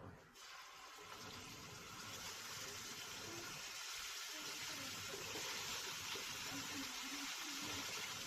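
Yogurt-marinated chicken sizzling in hot oil in a pan: a steady hiss that starts suddenly just after the beginning and slowly grows louder.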